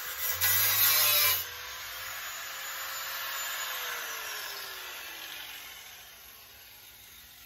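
Angle grinder with a cutting disc cutting a slot into an old steel hand saw blade, the cut ending about a second and a half in. The grinder then runs free briefly before it is switched off, and its whine falls in pitch and fades as the disc winds down.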